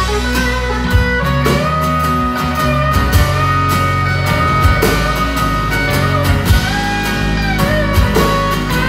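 Live country band playing: strummed acoustic guitar over drums, with a melody of long held notes, some of them sliding, on top.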